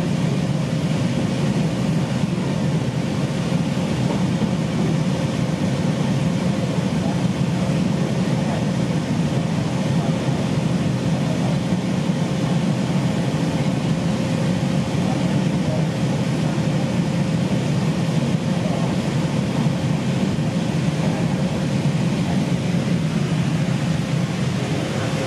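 CTA 7000 Series 'L' car running at a steady speed, heard from inside: a steady low rumble of the train on the rails, with a faint constant tone through it.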